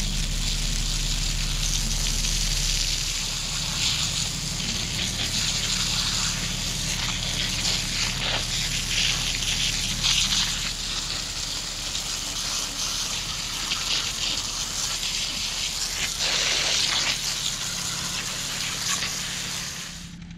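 Garden hose spray nozzle jetting water onto a cast-aluminum anthill sculpture to wash the dirt off: a steady hiss and splatter of water.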